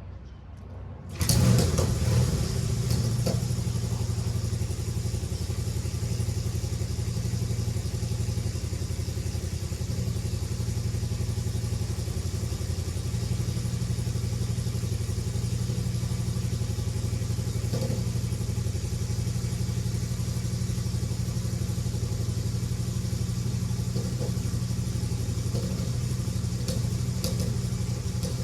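Honda CJ360's parallel-twin engine starts about a second in and then runs at a steady idle.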